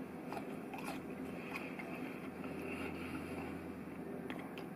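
A man chewing a mouthful of steak and grilled asparagus, with soft wet mouth clicks here and there, over a low steady hum.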